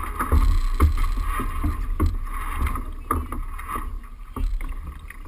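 Wind and water noise rumbling on the microphone of a camera mounted on a small sailboat's deck, with irregular knocks and thuds as crew move about on the deck.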